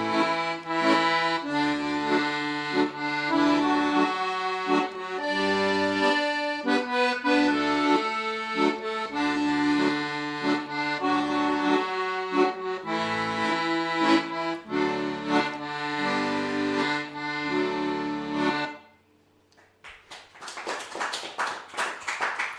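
Solo piano accordion playing a traditional Scottish tune: a melody over steady bass-button chords, ending cleanly about three-quarters of the way through. After a moment's pause, applause starts near the end.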